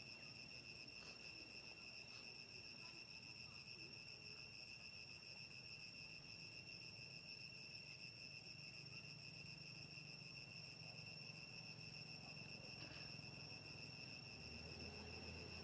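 Faint, steady, high-pitched trill of insects.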